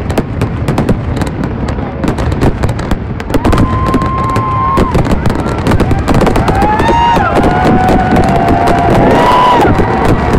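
Aerial fireworks bursting in a dense, rapid barrage of bangs and crackles. Several held high tones rise above the crackle in the second half.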